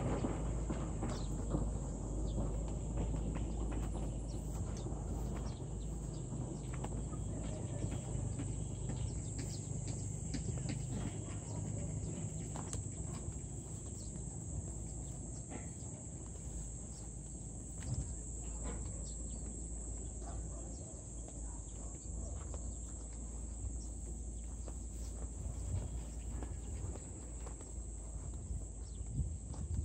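Walking outdoors: a low wind rumble on the microphone, a steady high insect buzz, and scattered faint steps on dirt and grass.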